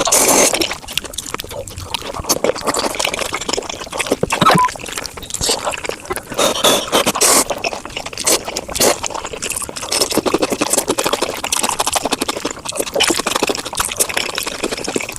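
Mukbang eating sounds sped up to five times normal speed: a dense, irregular run of short chewing and mouth clicks and smacks.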